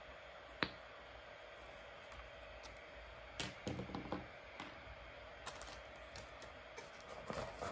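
A single sharp click about half a second in as a plastic safety cap comes off a multimeter test probe, then a cluster of light clicks and rustling in the second half from handling the cardboard box and the plastic bag inside it.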